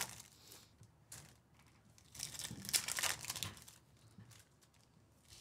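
Foil trading-card pack wrappers being torn open and crinkled by hand, in irregular bursts of crinkling. The loudest stretch comes about two to three and a half seconds in.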